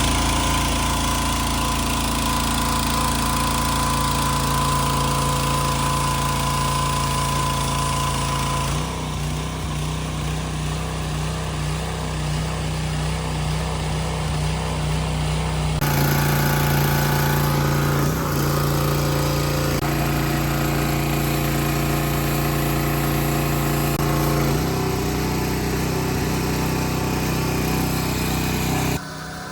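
An engine running steadily, its pitch and tone jumping abruptly a few times and cutting off near the end, as in several clips joined together.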